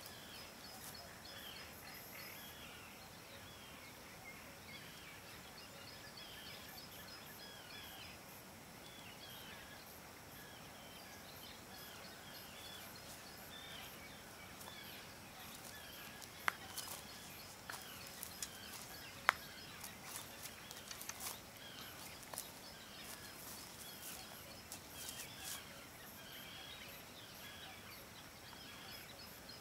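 Outdoor ambience with birds calling: many short chirps repeat throughout over a steady low background. A few sharp clicks come near the middle.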